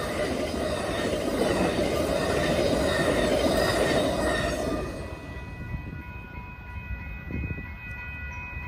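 Amtrak passenger train's bilevel cars rolling past over a grade crossing, wheels on rail, until the last car clears about five seconds in and the noise drops away. The crossing's warning bell keeps ringing as steady tones after the train has gone.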